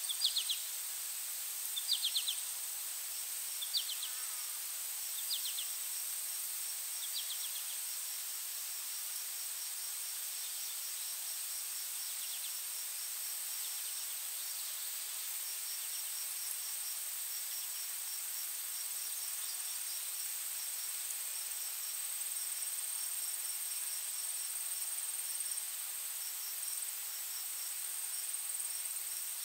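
Insect chorus: a steady high-pitched whine with a faint pulsing chirp beneath it. In the first seven seconds, five short chirps come about every second and a half to two seconds, louder than the chorus, then stop.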